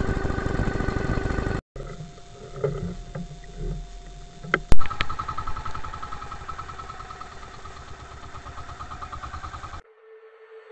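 Outrigger boat's engine running while under way, a steady pulsing drone heard across a few cut-together clips. There is one sharp click about halfway through. The engine sound drops away near the end, leaving only a faint steady tone.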